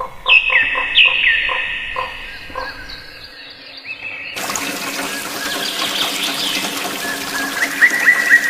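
A rapid pulsed animal call of about five pulses a second, overlapped by loud whistled bird calls that slide down in pitch. About four seconds in, it cuts to running water with birds chirping over it, including a run of short rising chirps near the end.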